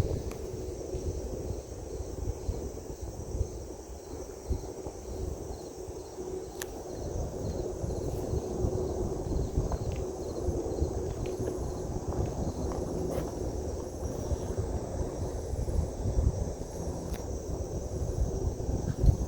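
Steady low roar-type rumble of unknown origin with a faint steady hum in it, under gusts of wind on the microphone. Insects chirp in a regular pulsing pattern high above it.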